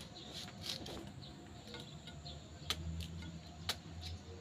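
Faint sharp knocks, one near the start and two more about 2.7 and 3.7 seconds in, as a large knife blade is worked into the thick stalk of a green banana bunch. Faint chirping is heard in the background.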